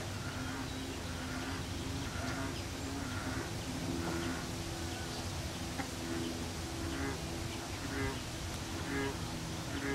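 A flying insect buzzing with a low hum that shifts in pitch. In the second half come a few short rasping calls.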